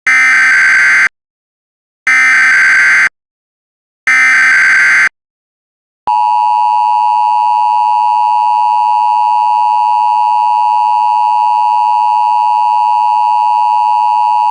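Emergency Alert System SAME header: three one-second bursts of warbling digital data tones, a second apart. About six seconds in, the steady two-tone EAS attention signal follows and holds.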